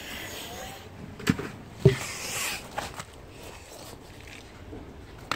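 Two sharp knocks about half a second apart, the second louder, followed by a brief rustle over a low background hiss.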